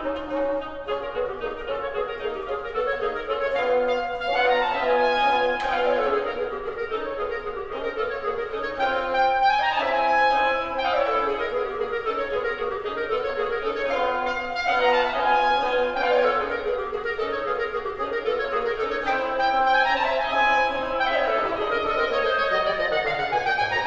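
Oboe, clarinet and bassoon trio playing a fast, lively movement, with quick runs sweeping up and down every few seconds.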